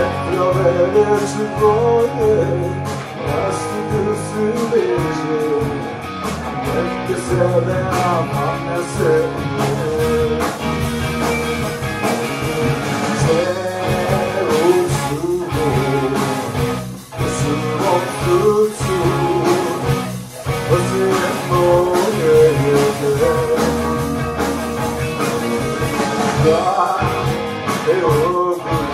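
A live rock band playing: two electric guitars, an electric bass and a drum kit, with a male lead voice singing over them.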